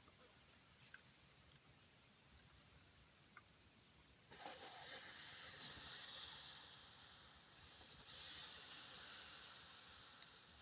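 Crickets chirping in short pulsed bursts, twice. About four seconds in, a steady hiss swells up and then slowly fades.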